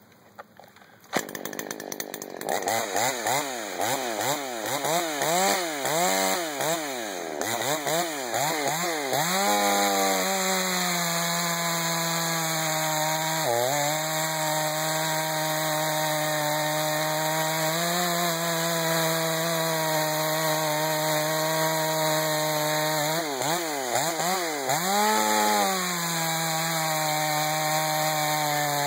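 Ported Earthquake 38cc two-stroke chainsaw starting about a second in and being revved up and down several times. It then settles to a steady full-throttle run while cutting through red oak, with another brief rise and fall of revs about two-thirds through.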